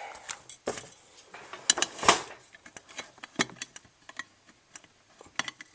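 Irregular clicks and light knocks of hardware being handled, the loudest about two seconds in. This is the 270A pull station being reset after it was pulled.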